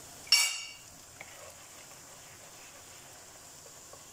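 Faint steady sizzling of mixed vegetables and melted butter frying in a nonstick pan. About a third of a second in there is a short, loud, high-pitched burst that dies away within half a second.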